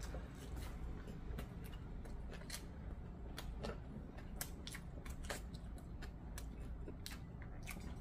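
A person chewing food close to the microphone, with irregular wet mouth clicks and smacks, one to three a second, over a steady low hum.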